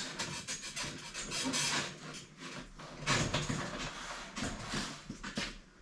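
Handling noise of plastic car bumper and grille parts: irregular rustling, scraping and light knocks.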